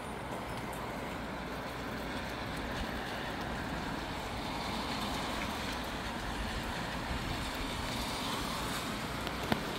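Breezy wind rushing steadily through palm fronds and trees, with a low rumble of wind on the microphone. One sharp click near the end.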